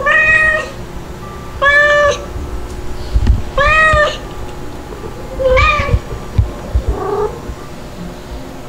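A month-old kitten crying with repeated high-pitched meows: four loud cries about half a second each and roughly two seconds apart, then a fainter call near the end.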